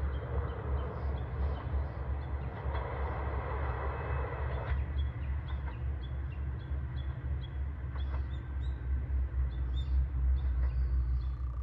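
Steady low rumble of a diesel railcar's engine running, with a rushing noise over it that drops away abruptly about five seconds in. Small birds chirp repeatedly throughout.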